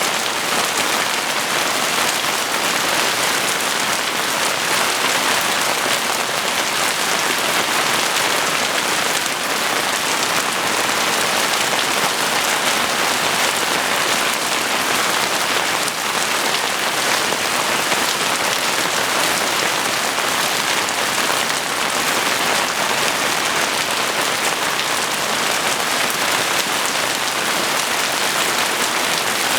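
Steady heavy rain hitting surfaces, a dense even hiss with no thunder or let-up.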